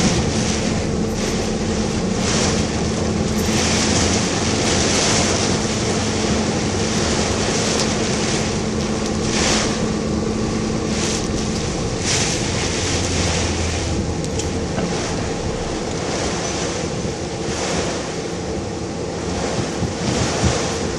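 Typhoon wind and rain against a moving car: a steady rushing noise that swells and fades with the gusts, over a low steady hum that drops away about halfway through.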